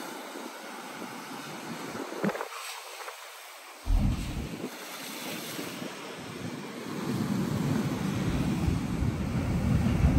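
Sea surf surging and washing over the rocks around a coastal blowhole: a steady rush of water with a sudden loud surge about four seconds in, then a louder, building rush in the second half. Wind buffets the microphone with a low rumble.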